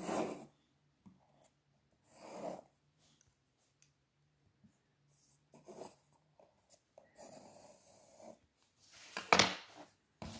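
Pencil and compass working on drawing paper: a few short scratchy strokes and a soft rubbing, with a louder knock near the end.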